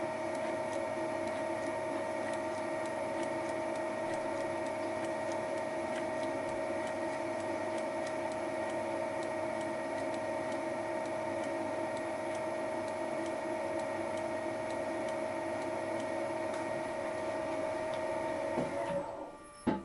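Thiel Duplex 158 milling machine running with a Wohlhaupter UPA5 facing and boring head, taking a facing cut on the plastic lawn mower housing: a steady mechanical hum and whine made of several constant tones. Near the end the sound drops away, with a sharp click.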